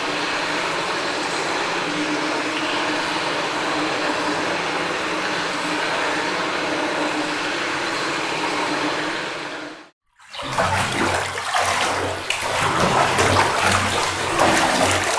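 Running water: a steady, even rush for about ten seconds, then a brief break and a louder, more uneven splashing flow, like a tub filling.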